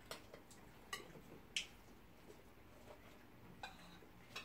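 Faint clinks of cutlery against plates and dishes at a meal: about five light, separate clicks in a quiet room, the loudest about a second and a half in with a short ring.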